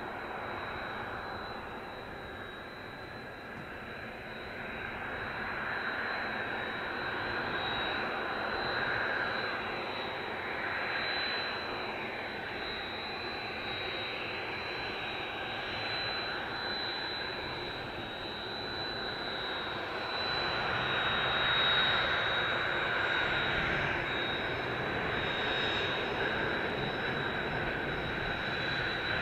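Kawasaki T-4 jet trainers taxiing, their twin turbofan engines running with a steady high whine over a broad rushing noise. The noise grows louder over the first twenty seconds or so, peaks, and eases slightly.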